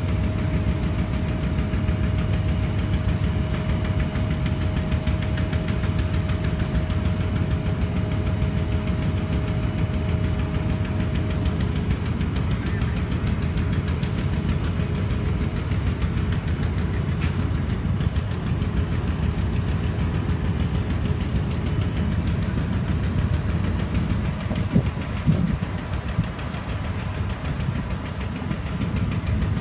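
Heavy diesel engines of Link-Belt mobile cranes running steadily under load during a lift, a low continuous rumble with a faint steady whine over it that stops about halfway through.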